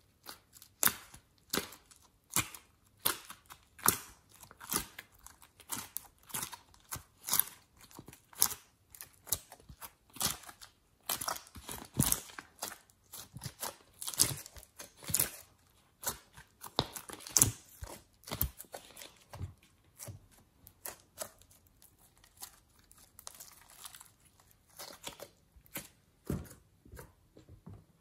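Glossy slime being pressed, pulled out of the cells of a plastic tray and squished together by hand: irregular sticky crackles and pops, often one or two a second.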